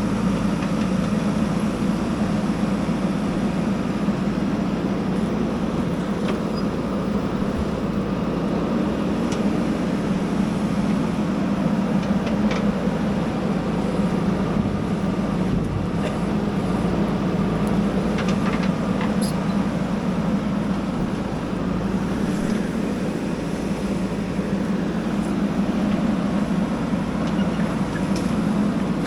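JCB backhoe loader's diesel engine running steadily as it digs and loads soil into a dump truck, with a few faint clicks here and there.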